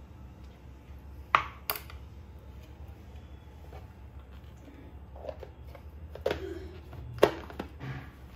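Hard plastic kitchenware clicking and knocking: a plastic measuring cup is set down on a cutting board and the lid of a pull-cord hand chopper is fitted onto its bowl. Two sharp clicks come early, and a few more knocks follow about six to eight seconds in.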